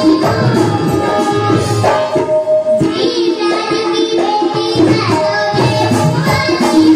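A young girl singing a song into a microphone with held, ornamented notes, accompanied live by harmonium and tabla, with a keyboard also playing.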